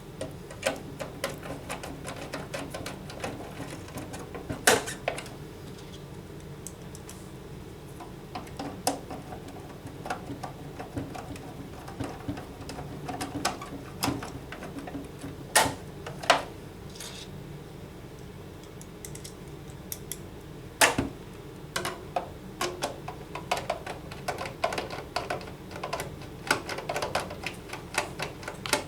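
Screws being driven by hand into a cigarette machine's plastic case: a long run of small, irregular clicks and ticks, with a few sharper knocks now and then.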